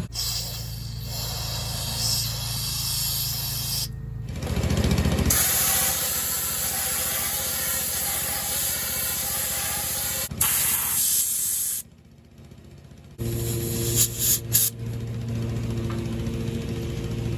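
Aerosol carburetor cleaner spraying in several long bursts into an engine's carburetor area, loudest between about five and ten seconds in. After a short break near twelve seconds, a steady hum with a low tone takes over.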